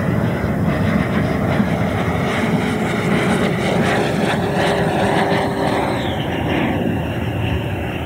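Electric ducted fan of a large radio-controlled model jet in flight (JETFAN-120 PRO with a HET 800-73 motor): a steady jet-like rushing whine with a faint steady hum under it. The pitch drops about six seconds in.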